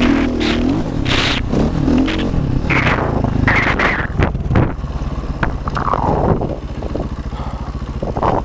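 Dirt bike engine working hard up a loose sand track, its revs rising and falling with the throttle. It settles lower about five seconds in as the bike slows.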